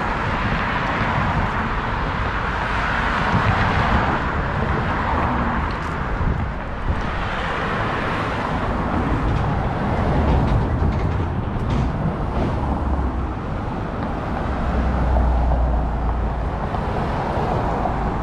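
City street traffic: cars passing with a steady noise of tyres and engines that swells as vehicles go by, with a deeper rumble toward the end.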